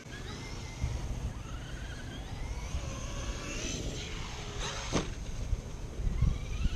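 Traxxas X-Maxx electric RC monster truck's brushless motor whining, its pitch rising and falling as the throttle is worked, over a low rumble. About five seconds in there is one sharp knock as the truck comes down from a jump.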